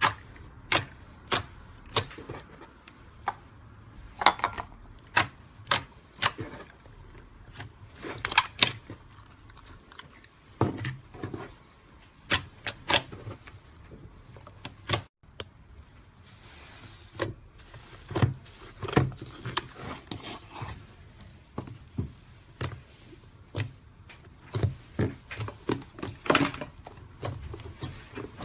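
Slime being pressed, stretched and kneaded by hands, giving irregular sharp pops and clicks of trapped air, about one or two a second.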